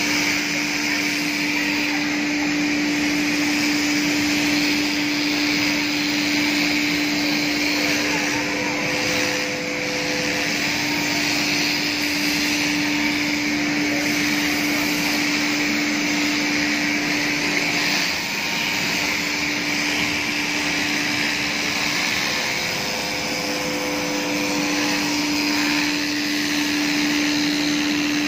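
Cordless electric fabric scissors running steadily while cutting thick mat material: a constant motor whine with a hiss from the cutting blades.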